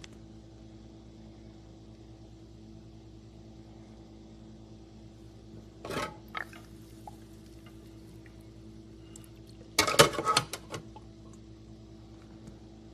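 A steady low hum with a brief clatter of hard objects about six seconds in, and a louder burst of clattering, like dishes or parts being handled, around ten seconds in.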